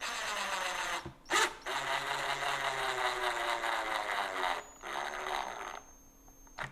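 Cordless drill-driver driving a waxed wood screw through a guitar bridge plate into the body, in three runs: a short one, a long one in which the motor pitch slowly sinks as the screw bites in, and a short final one to seat it.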